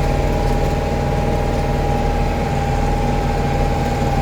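Case 885XL tractor's diesel engine running steadily while the tractor is driven, with a steady high whine held over the engine note.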